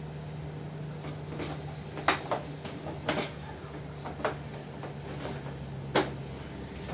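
Sharp plastic clicks and knocks of a scooter's body panels being handled and worked loose by hand, about six of them, the loudest about two seconds in and near the end, over a steady low hum.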